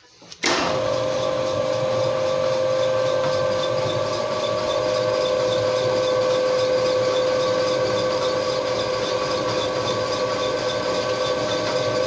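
Electric car lift motor running steadily as it raises a car, with a steady hum and a light fast ticking. It starts abruptly about half a second in and stops at the end.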